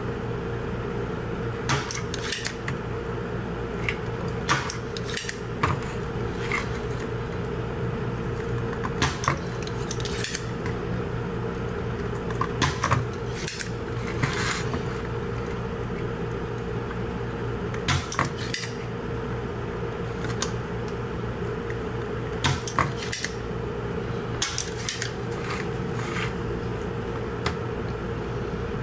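Spring-loaded desoldering pump being cocked and fired to suck solder off stepper motor pins on a circuit board: sharp clicks and snaps every second or two, often in pairs, over a steady low hum.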